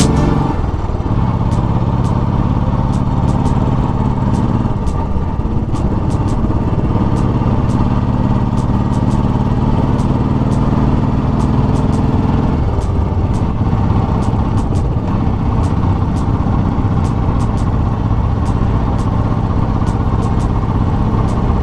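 Royal Enfield motorcycle engine running steadily on the move over a low rumbling noise, its note shifting about five seconds in and again near thirteen seconds. Scattered sharp ticks run throughout.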